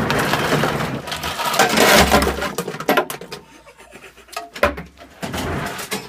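Hotel ice dispenser dropping ice cubes into a bare hand. There is a dense clatter of cubes for about three seconds, then a few scattered cubes, and a second short burst of clattering near the end.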